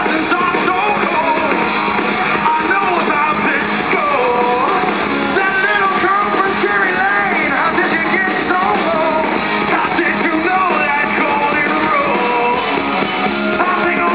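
Live rock band playing: electric guitars and drums with a male singer.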